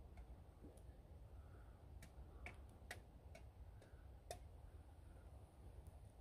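Faint, sparse crackles and sharp pops from a freshly lit kindling fire of split ash feather sticks and dry twigs catching.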